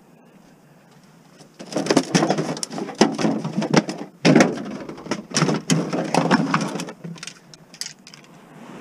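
Plastic jugs and bags crinkling and rustling with sharp knocks, as items are pulled out of a packed minivan cargo area of bottles and scrap, starting about a second and a half in and dying down near the end.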